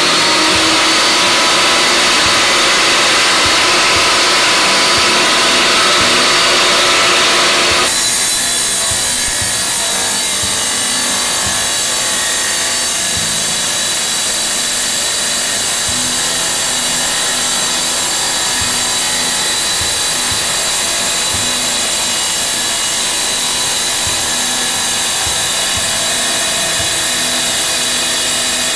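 MK TX-4 wet tile saw's direct-drive motor and diamond blade running at full speed while cutting a tile, a steady loud whine and hiss. The whine is still rising as the motor spins up at the very start, and the sound changes about eight seconds in, then holds steady.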